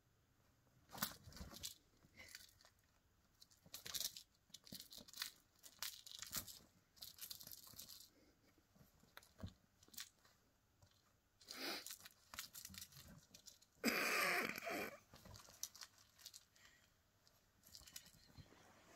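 A kitten scrabbling about inside a fabric shopping bag, the bag rustling and scratching in short irregular bursts, with a longer, louder rustle about fourteen seconds in.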